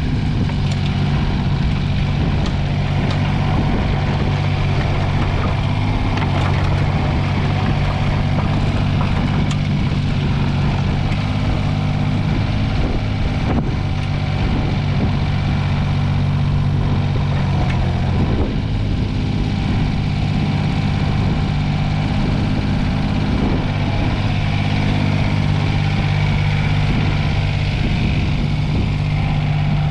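Komatsu PC05-7 micro excavator's small diesel engine running at a steady speed, with light mechanical rattle over it and a brief dip in the engine note about two-thirds of the way through.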